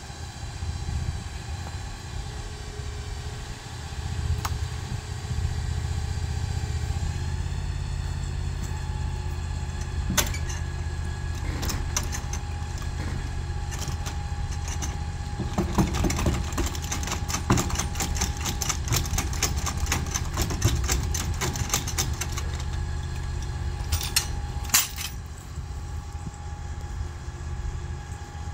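An engine running steadily at idle, with a run of sharp metal clicks and clanks over its middle stretch.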